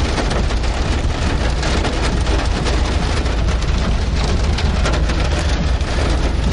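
Heavy rain pouring down in a severe thunderstorm, a loud, steady hiss of countless drops with a low rumble of wind beneath it.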